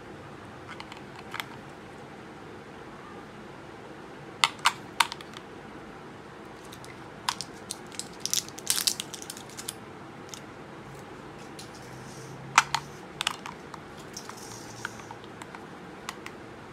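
Plastic casing of an electronic duck-caller remote being handled, giving scattered sharp clicks and snaps: two about four and a half seconds in, a rattling cluster around eight to nine seconds, and the loudest snap around twelve and a half seconds.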